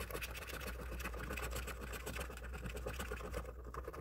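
A copper penny scraping the silver coating off a lottery scratch-off ticket in rapid, continuous back-and-forth strokes.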